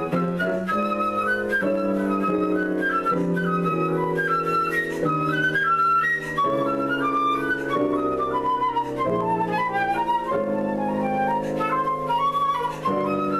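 Concert flute playing quick runs of short notes over grand piano chords that change about every second, in a piece based on Turkish folk melodies.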